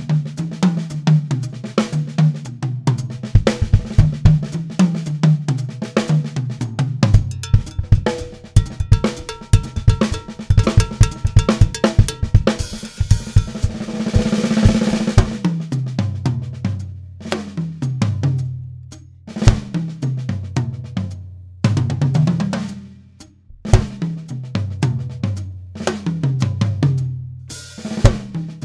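Drum kit solo played melodically: rapid runs across the tuned toms step up and down in pitch, mixed with snare and bass drum strokes. About halfway a cymbal swells and washes, and sharp crash accents cut in over the later tom runs.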